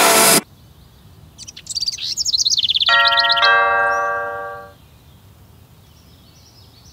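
Two-note ding-dong doorbell chime, about three seconds in, ringing out and fading over about a second and a half. Birds chirp rapidly just before it and faintly again near the end.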